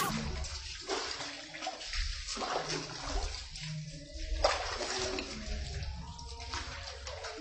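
Water splashing and pouring as a person lathers and rinses soapy hair, in uneven swells.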